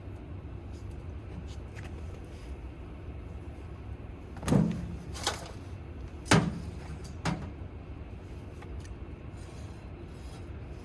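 Four short knocks within about three seconds, the third the sharpest, over a steady low hum.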